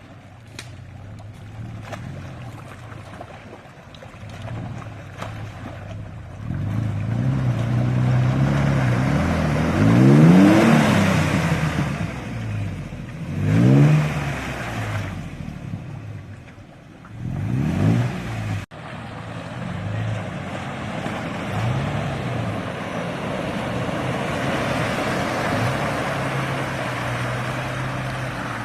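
Off-road vehicle's engine revving hard three times, its pitch climbing and dropping with each burst of throttle, then running steadily under load.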